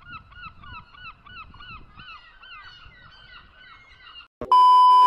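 Seagulls calling over and over, quick falling cries about four a second, over a faint low rumble. Near the end the calls stop and a loud steady electronic beep sounds.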